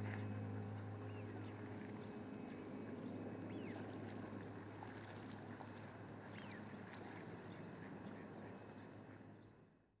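A flock of ducks resting on open water: a few short, falling whistled calls over a steady low background rush, fading out near the end.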